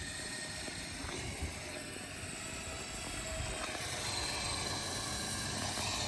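Recovery winch running steadily as it drags the Volkswagen Beetle over a tree stump, with a low knock about a second and a half in and the sound slowly growing louder.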